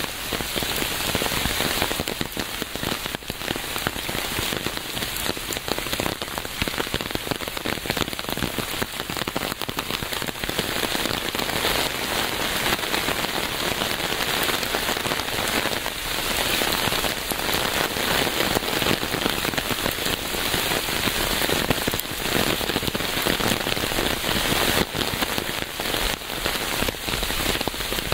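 Steady rain falling on a surface, a dense even patter of many drops.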